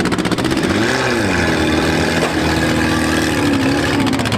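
Engines of several small demolition-derby cars running together, revving up and down over one another, with a clear rev rising and falling about a second in and another near the end.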